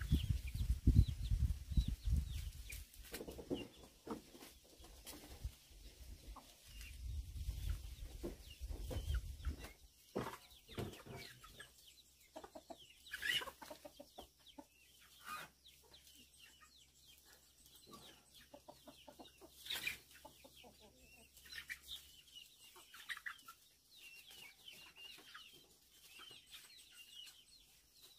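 Chickens clucking off and on in short scattered calls, with low rumbling and knocks through the first third.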